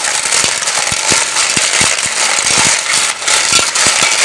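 Clams being mixed with salt by hand in a metal pot: a loud, continuous scraping rattle of shells grinding together, with irregular sharp clicks as shells knock against each other and the pot.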